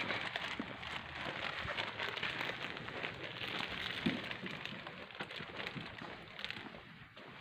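Crackling rustle with many small scattered clicks, from a hand-held phone being carried and handled while walking, fading near the end.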